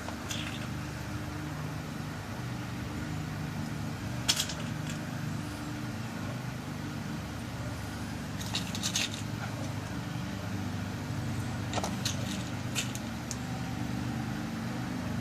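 Small metallic clicks and ticks as lock pins are set into a lock cylinder's pin chambers to load a new key code. There is one sharp click a few seconds in, then short clusters of lighter ticks past the middle and again later, over a steady low hum.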